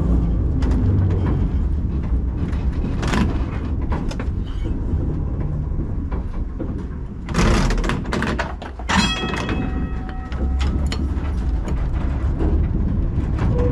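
Old two-axle tram running, a steady low rumble with knocks and rattles; a loud rushing burst comes about halfway, followed by a brief high ringing tone.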